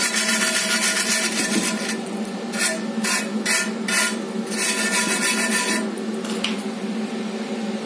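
Steel wire brush scrubbing inside the freshly cut groove of a cast aluminium wheel rim, clearing out the grit left by the cutting disc so the weld will not be porous. The sound is scratching: a long stretch, then several short strokes, then another long stretch that fades about two seconds before the end. A steady hum runs underneath.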